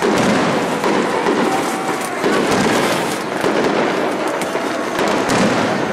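Fireworks going off in a dense run of overlapping bangs and crackles.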